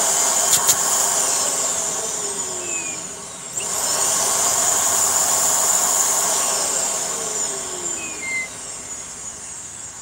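Hoover Air Steerable upright vacuum cleaner running just after being switched on: a steady motor whine and airy rush. About three and a half seconds in it dips and surges back up, then it eases off gradually toward the end.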